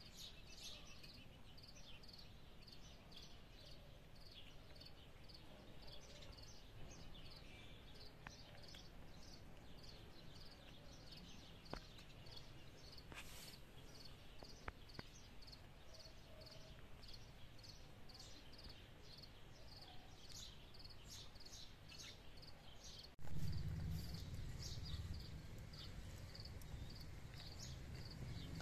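Faint outdoor chirping, high-pitched and repeating several times a second. About 23 seconds in, a louder low rumble starts suddenly.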